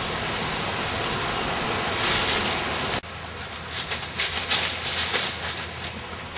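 Steady wind noise on an outdoor camera microphone, cutting off abruptly about three seconds in. After that, quieter scattered rustling and scuffing of dry leaves as a person moves on all fours over the ground.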